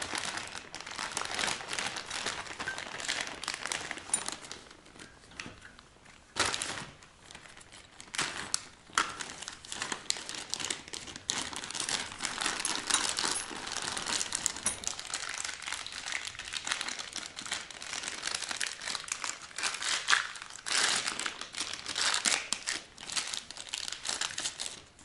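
Clear plastic bag crinkling and rustling as hands rummage through it, in irregular bouts with a short lull about a quarter of the way through.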